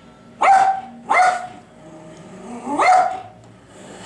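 Puli dog barking: two barks in quick succession, then a third about a second and a half later.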